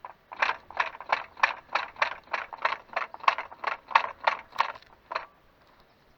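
A rapid, evenly spaced clattering rattle in a 2013 Škoda Octavia 1.8 TSI, about three strokes a second for nearly five seconds, then it stops. This is the rattle that shows up over bumps and vibrations, which the owner suspects may come from the DQ200 seven-speed DSG gearbox.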